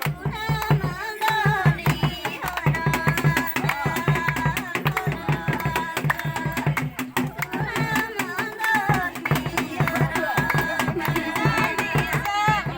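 Music: a singing voice over a steady drum beat.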